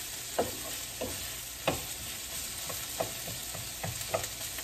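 Sliced onions sizzling in oil in a frying pan while a wooden spatula stirs them, with a scrape or knock against the pan every second or so.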